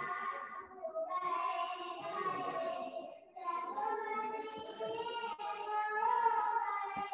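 A child singing, long held notes that glide up and down, with short breaks between phrases.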